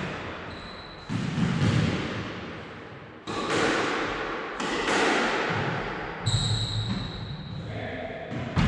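Squash ball struck by racket and hitting the court walls in a backhand rally drill: about five sharp hits, one every one to two seconds, each ringing on in the court's echo. About six seconds in, a sneaker squeaks on the court floor for over a second.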